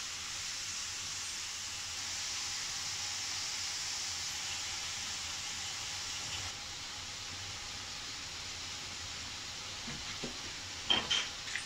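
Slices of meat sizzling in a frying pan: a steady hiss that eases a little past halfway. A few light clicks near the end.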